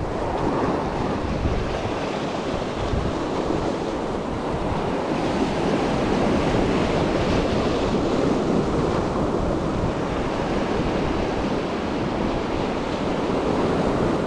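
Sea surf washing and breaking over rocks, a steady rushing with wind buffeting the microphone.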